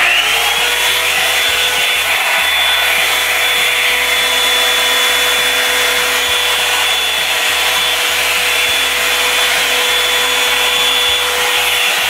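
Revlon One Step Volumizer hot-air brush switched on, its fan motor spinning up within a fraction of a second and then running steadily with a whirring rush of air and a high whine.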